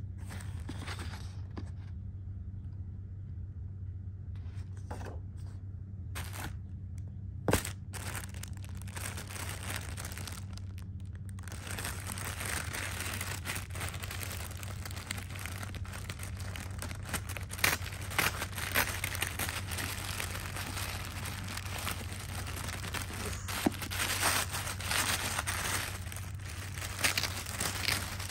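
Tissue paper rustling and crinkling as a hand pulls at its sticker seal, after sparse handling of a paper card with one sharp tap. The crinkling becomes continuous from about 11 seconds in, with several louder crackles, over a steady low hum.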